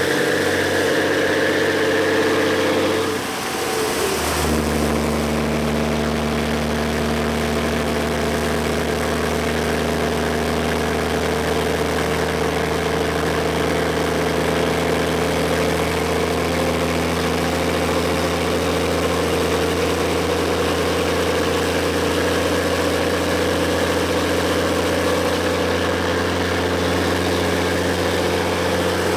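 DAF XF 480 truck's six-cylinder diesel on an open, unsilenced exhaust, idling. About three seconds in its speed drops, and it then settles into a steady low idle.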